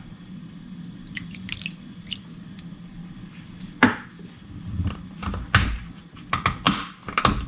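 Vinegar poured from a small cup over raw chicken drumsticks in a ceramic bowl, trickling and dripping, followed from about halfway on by several sharp knocks and clacks.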